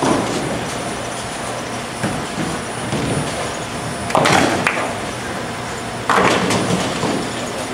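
Bowling alley din: a steady rumble of balls rolling and pinsetter machinery, with a short clatter at the start and louder crashes of bowling pins about four seconds in and again about six seconds in.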